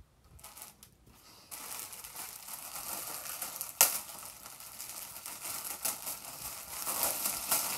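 Plastic packaging crinkling and rustling as a rash guard is worked out of its bag, with one sharp snap about four seconds in.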